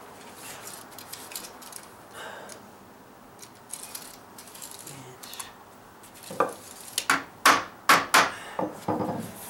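Light handling scrapes and clicks, then from about six seconds in a quick run of sharp metallic clanks as the metal deck flashing is knocked and shifted into place.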